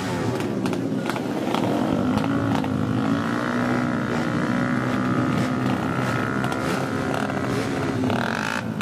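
Small tuned racing motorcycle engine revving: the pitch goes up and down for the first couple of seconds, then is held steady at high revs for several seconds before dropping near the end.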